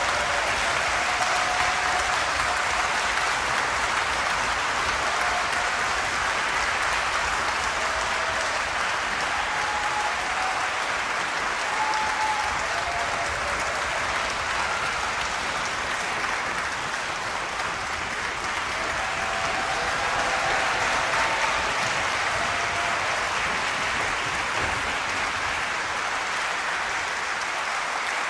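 Concert-hall audience applauding steadily, a dense sustained clapping.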